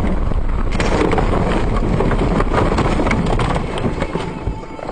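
Vehicle noise with a dense run of knocks and rattles, easing off about three and a half seconds in.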